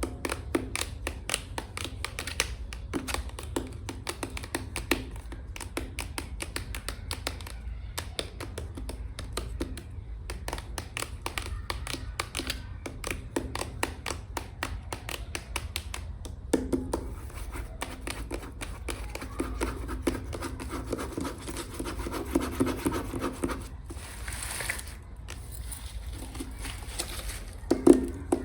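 Long fingernails tapping and scratching quickly, a dense run of crisp clicks with a scratchy texture that thickens in the middle.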